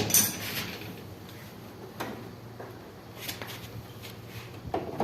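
Occasional light clicks and knocks of hand tools and metal parts while a window air conditioner is being taken apart, over a faint steady hum.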